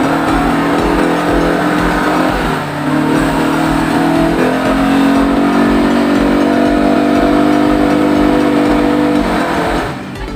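ATV engine running under way, its pitch rising and falling with the throttle, dropping away near the end.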